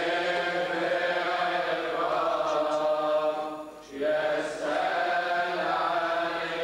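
Coptic Orthodox liturgical chanting, sung in long drawn-out notes whose pitch shifts slowly, with a brief break for breath about four seconds in.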